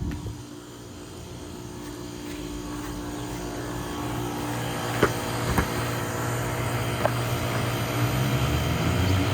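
A steady low mechanical hum that grows louder over several seconds, with a few sharp taps partway through and a tone rising in pitch near the end.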